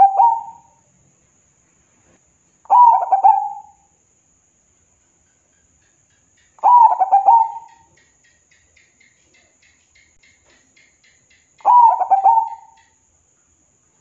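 Zebra dove (perkutut) cooing: short phrases of quick staccato coos, each about a second long, repeated every three to five seconds.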